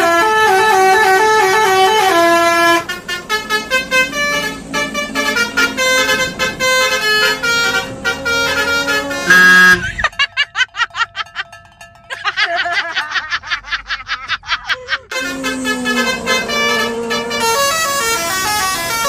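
Telolet basuri musical horn playing a tune of stepping notes, first held, then in quick short blasts. Midway it breaks into fast pulsing beeps and a warbling tone before the tune resumes.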